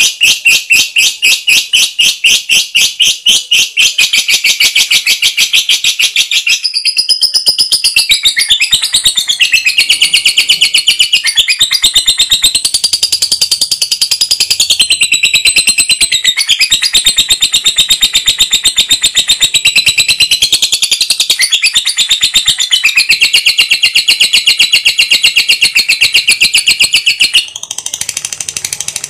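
Lovebird singing a long, rapid chattering trill of high, evenly repeated notes that keep shifting in pitch, breaking off briefly near the end.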